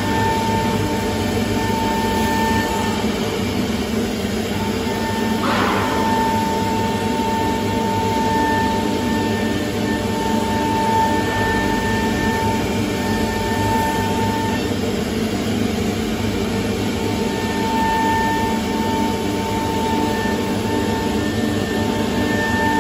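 CNC router spindle cutting a wood panel: a steady high whine that drops out and returns several times over a constant low machine noise. There is a brief swish about five and a half seconds in.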